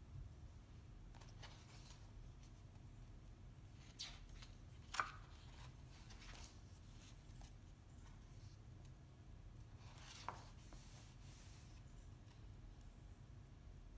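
Pages of a large printed book being turned by hand: soft paper rustles and flicks, the sharpest about five seconds in and another about ten seconds in, over a faint low room hum.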